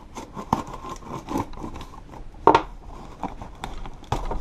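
A shipping package being opened by hand: irregular cutting, tearing and rustling of packaging, with one sharper, louder crackle about two and a half seconds in.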